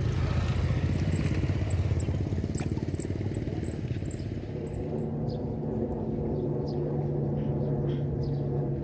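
An engine running steadily, a low drone with a fast pulsing beat that settles into a smoother, steadier hum about halfway through.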